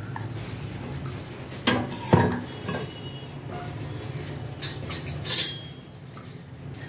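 Stainless steel bowl and mixer-grinder jar knocking and clinking together as cooked rice is tipped into the jar, a few sharp knocks with the loudest a little over two seconds in.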